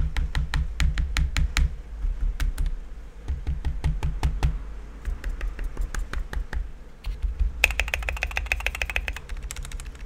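Typing on an EPOMAKER GK108s hot-swap mechanical keyboard: quick runs of key clicks, with a dense fast flurry of keystrokes about three-quarters of the way through that carries a faint high ring. There is a little clank in the keystrokes, which may need fixing.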